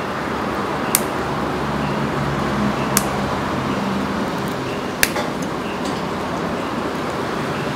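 Three sharp clicks, evenly two seconds apart, over a steady hum with a low drone.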